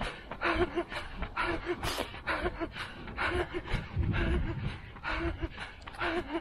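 A man's hard, rhythmic panting while running flat out, voiced breaths about twice a second, with footfalls on the path beneath. About four seconds in, a low rumble briefly joins.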